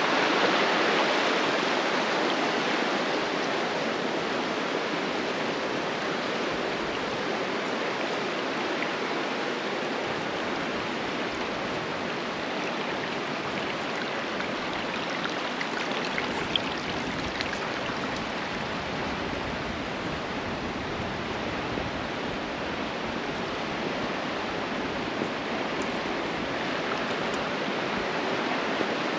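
Creek water running steadily, a little louder in the first couple of seconds.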